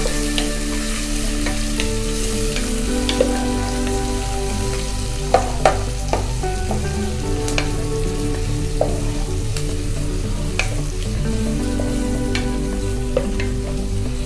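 Chopped onions sizzling as they fry in sesame oil in an aluminium pot, with a wooden spatula stirring and scraping and knocking against the pot now and then, most sharply a couple of times around the middle. Steady held background-music notes run underneath.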